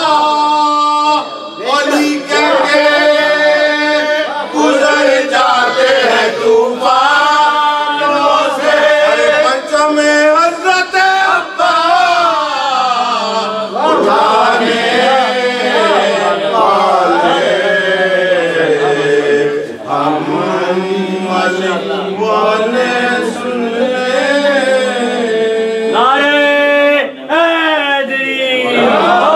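Unaccompanied male chanting of an Urdu nauha, a Shia lament, sung in long, drawn-out lines with held notes.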